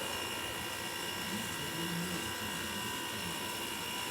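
A steady background whine made of several tones, with a faint low voice-like sound between about one and two and a half seconds in.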